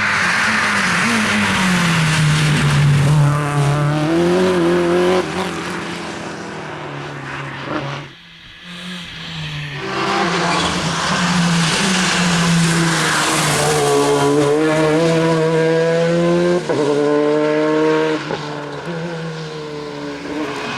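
Rally cars at full stage pace, engines revving hard, climbing in pitch and dropping back again and again through gear changes, with tyre squeal. The sound dips sharply about eight seconds in, then the next hard acceleration takes over.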